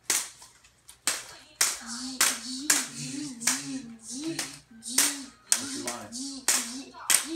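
Toy lightsabers clashing: plastic blades striking one another in a quick series of sharp clacks, roughly two a second. A low wavering hum joins in about two seconds in and runs under the strikes.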